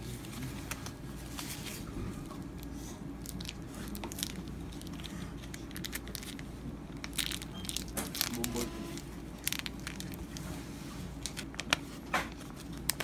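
Thin plastic food wrapping crinkling and tearing by hand as a packaged sausage is peeled out of its film wrapper, in scattered sharp crackles that come thicker in the second half. Near the end a small plastic sachet is torn open at its notch.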